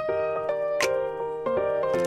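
Background keyboard music: a gentle piano-like melody with notes changing every half second or so.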